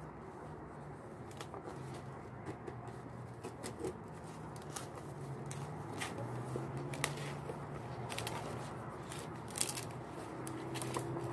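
Large green leaves rustling and crackling as they are handled and split by hand, with irregular short crisp snaps, over a steady low hum.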